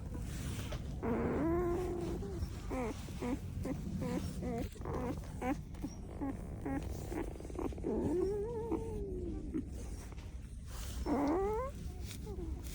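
Newborn Belgian Malinois puppies, about six days old, squeaking and whimpering in thin, high cries that rise and fall. The cries come in short runs, with one long arching whine about eight seconds in and a sharp rising squeal near the end.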